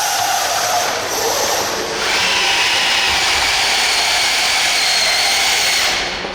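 RC pulling vehicle running hard down the track, a dense mechanical rush with high motor and gear whine. It gets louder about two seconds in, the whine rising slightly, and falls away shortly before the end.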